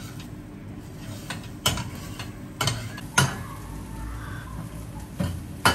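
A metal fork stirring and scraping scrambled egg in a stainless steel frying pan, with about half a dozen sharp, irregular clinks of the fork against the pan.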